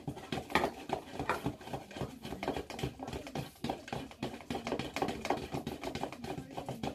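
Fibreglass resin with its hardener catalyst being stirred in a mixing cup: a rapid, irregular clicking and scraping of the stirrer against the cup.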